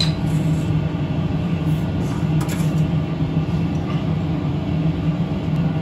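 Steady low machine hum, with faint scrapes of moulding sand being shovelled and spread by hand.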